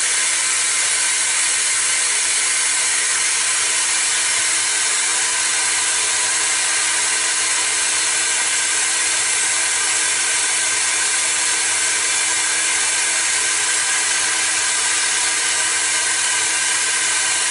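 Hoover vacuum running as dust extraction with the suction only and no router cutting: a steady airflow hiss with a low, even hum underneath, starting abruptly.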